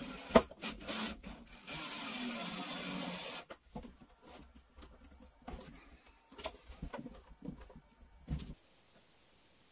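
Cordless drill driving screws into plywood, its motor whirring in short bursts and then running for about three seconds. After that comes a hand screwdriver turning the screws, with scattered small clicks and creaks that stop shortly before the end.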